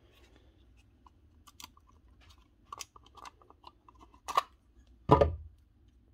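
Plastic casing of a Milwaukee M18 5.0 Ah battery pack being pulled apart by hand: light clicks and scrapes, with two sharp knocks about four and five seconds in, the second the loudest.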